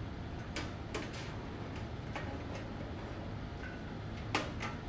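Scattered light clicks and taps of an HDMI cable and its plug being handled, the sharpest click about four and a half seconds in, over a steady low hum.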